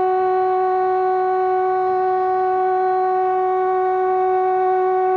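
Narrow-gauge train's horn sounding one long, steady note, with faint running noise of the train beneath.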